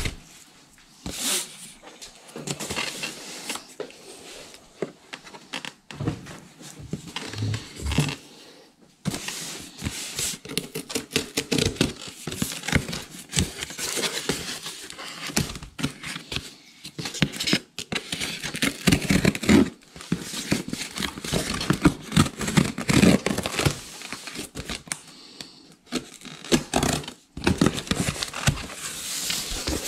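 A knife blade cutting through the packing tape and cardboard of a shipping box, with irregular scraping, tearing and crackling as the blade is drawn along and the box is handled.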